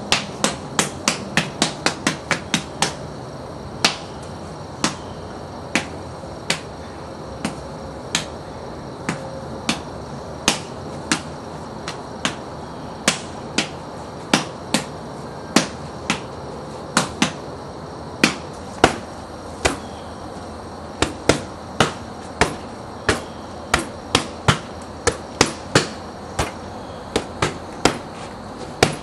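Hands slapping and punching iron-palm conditioning bags: a quick flurry of sharp smacks in the first few seconds, then irregular single strikes about one or two a second.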